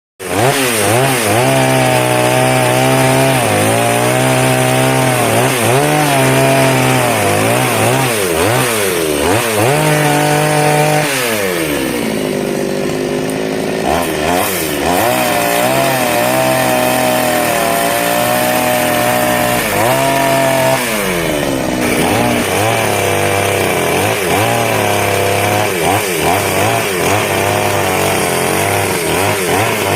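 Two-stroke chainsaw at high revs cutting through wood. The engine note sags and recovers again and again as the chain bites, dropping lower for a moment about 11 seconds in and again about 21 seconds in.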